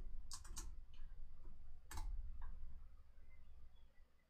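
A few sharp clicks from a computer keyboard and mouse: two close together about half a second in and a louder one about two seconds in, over a low room hum.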